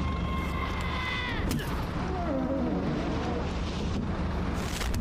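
Cartoon sound effects from an animated TV channel ident over a steady low rumble of an idling car. A whistled tone drops in pitch and ends in a smack about a second and a half in, then a short warbling cartoon voice follows, with another sharp hit near the end.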